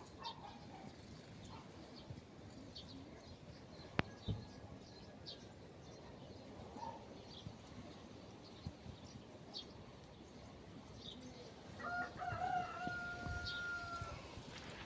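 A rooster crows once near the end, a drawn-out call of about two seconds, over faint short high bird chirps; a single sharp click about four seconds in.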